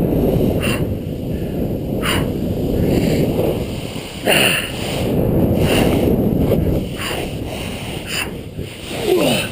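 Snowboard sliding and carving over snow, a steady rushing scrape, with wind on the microphone and the rider's breaths coming at a regular pace of one every second and a half or so.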